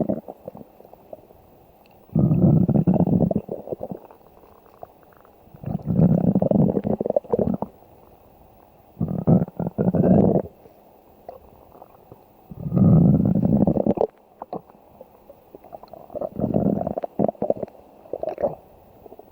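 A person's stomach growling: five low rumbles, each a second or two long, coming every three to four seconds.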